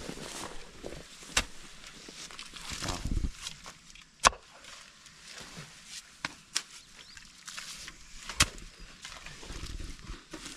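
Hand hoes (jembes) chopping into and scraping wet mud and clay, with scattered sharp knocks of the blades, three of them standing out and the loudest about four seconds in.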